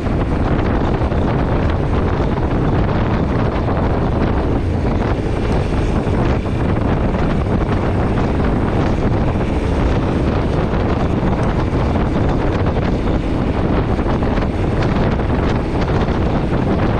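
Yamaha Ténéré 700's parallel-twin engine running at road speed, mixed with steady wind noise on the microphone.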